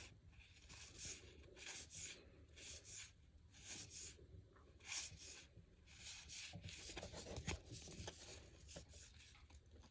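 Faint rubbing and swishing of trading cards sliding over one another as a pack is flipped through, one or two soft swishes a second.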